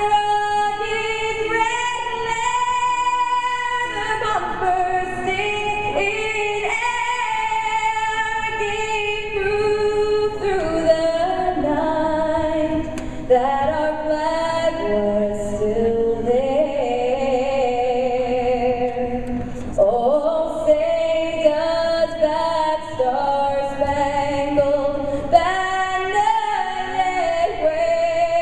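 A solo female voice sings the national anthem unaccompanied, holding long notes, through a handheld microphone on an ice-hockey arena's public-address system.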